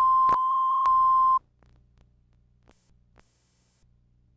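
Steady 1 kHz reference test tone accompanying colour bars, broken by a couple of brief clicks. It cuts off suddenly about a second and a half in, leaving only a faint low hum.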